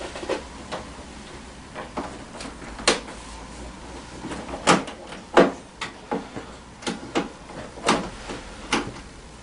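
Irregular light clicks and knocks of a scooter's plastic front hood and a screwdriver as screws are fiddled into finicky screw slots, about a dozen over several seconds, the loudest around the middle.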